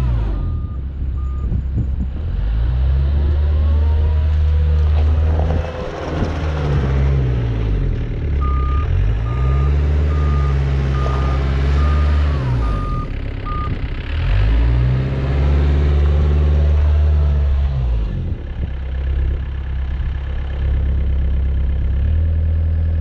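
Yanmar B55W-2 wheeled excavator's diesel engine running loudly as the machine drives and turns, its speed rising and falling several times. A travel alarm beeps steadily: two beeps near the start, then a run of about eight beeps in the middle.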